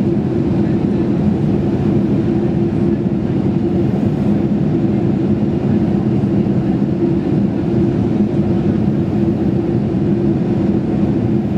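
Steady cabin drone of a four-engine Boeing 747-400 in flight, heard inside the cabin: engine and airflow noise with a low, even hum underneath.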